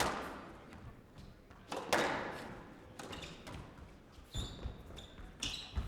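Squash ball struck hard several times, each hit ringing in a large hall, with short high squeaks of court shoes on the floor near the end.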